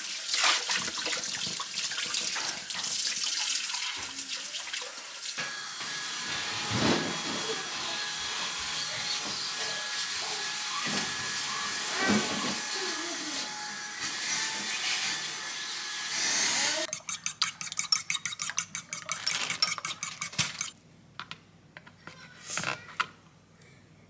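Water running from a tap into a sink, a steady rush, stopping about 17 seconds in. A rapid run of clicks follows for a few seconds, then a few faint knocks.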